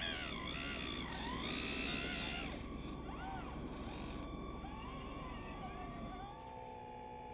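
Electric motors of an RC model excavator whining, their pitch gliding up and down as the machine is worked. About six seconds in they settle into a steadier, lower whine.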